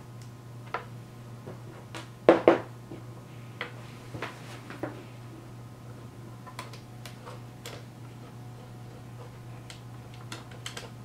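Scattered small clicks and taps of a hex nut driver and fingers working hex nuts and wire terminals on a spa pack circuit board, the loudest a quick pair about two seconds in. A steady low hum runs underneath.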